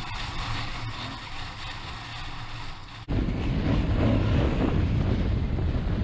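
Adventure motorcycle under way, with wind noise over the microphone. About three seconds in, the sound changes abruptly to louder, low wind buffeting on the microphone.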